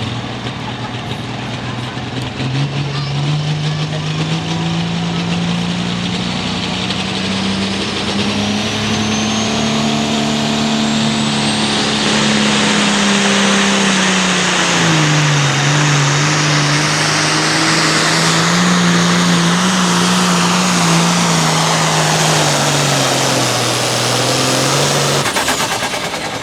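Turbocharged diesel Hot Farm pulling tractor at full throttle hauling a weighted sled. The engine note climbs as it hooks up, sags under load partway and recovers, and a high turbo whistle rises over the first half. Near the end the engine note drops off as the pull ends.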